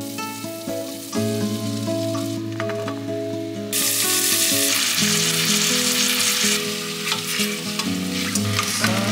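Food frying in oil in a pan, a steady sizzle that gets much louder about four seconds in, over background music.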